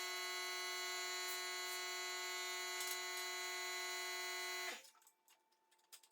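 A steady, unchanging drone of several held tones together, like an electronic hum, that stops abruptly about four and a half seconds in, leaving only a few faint clicks.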